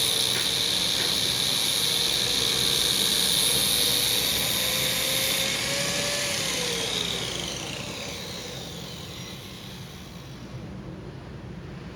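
Electric workshop machine motor running with a steady whine and hiss. About six seconds in it winds down, its whine falling in pitch as the sound fades.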